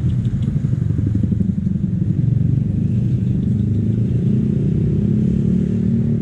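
A motorcycle engine running steadily, a loud low rumble that holds through without a break.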